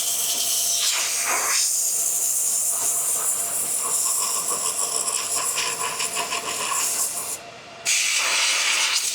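Compressed air hissing as it is blown through a Bitcoin ASIC miner's power supply unit from the exhaust side, dry-cleaning dust out of it. The hiss is steady, stops briefly about seven and a half seconds in, then starts again.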